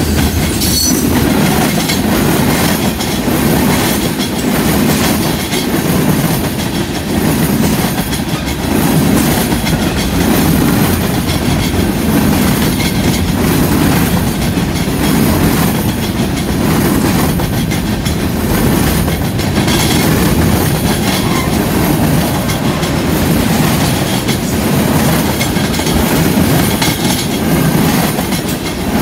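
Freight cars of a passing train (tank cars, covered hoppers and boxcars) rolling by at close range: loud, steady wheel-on-rail noise with a clickety-clack that swells every second or two as each car's wheels pass.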